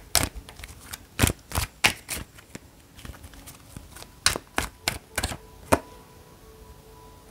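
Oracle cards being shuffled by hand: a run of sharp, irregular card snaps and slaps, a few a second, that stops about a second and a half before the end.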